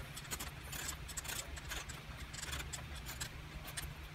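Faint, irregular small clicks and scrapes of hard plastic as fingers turn the screw knob and twist a 3D-printed PLA clamp on a tripod head, testing that it is tightened and no longer rotates.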